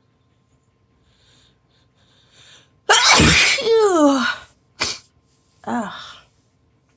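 A woman with a head cold sneezes loudly about three seconds in, after a few quick in-breaths. The voiced tail of the sneeze falls in pitch. It is followed by a short sharp burst of breath and a brief falling vocal sound.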